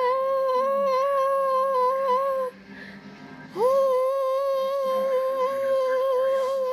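A child humming a mock-dramatic "dun... dun" in two long held notes on one steady pitch with a slight wobble; the first breaks off about two and a half seconds in and the second starts about a second later.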